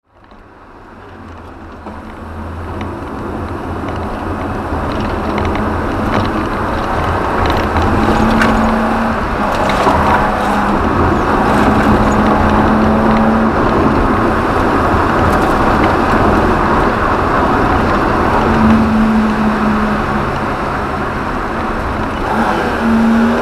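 BMW M10B18 1.8-litre four-cylinder engine of an E30 318i running under load on track, heard from inside the cabin with wind and road noise. The sound fades in over the first few seconds, then stays steady with a hum that comes and goes.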